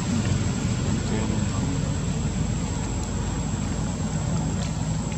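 Steady low engine rumble, like a motor running nearby, with no sharp events.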